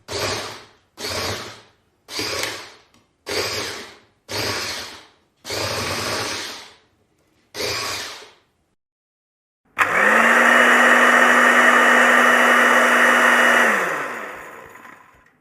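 Small electric blender pulsed in seven short bursts about a second apart, then run continuously for about four seconds before the motor is switched off and spins down.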